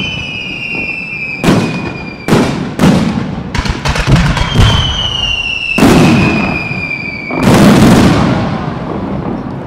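Fireworks display with aerial shells bursting in a quick, uneven series of about seven booms. Long high whistles slide slowly down in pitch between them. The loudest boom comes near the end, then fades away.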